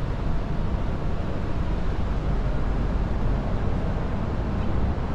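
Steady low rumble and hiss of outdoor background noise, strongest in the deep bass and without distinct events.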